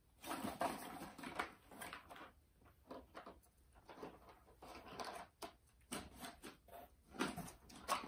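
A Pomeranian rummaging with its head in a cardboard tray of toys and chew sticks: irregular rustling and scraping of cardboard, with sharp knocks as toys and sticks are shoved about.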